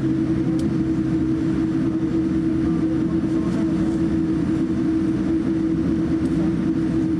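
Cabin noise of a Boeing 787-9 taxiing: a steady hum with one constant tone over a low rumble.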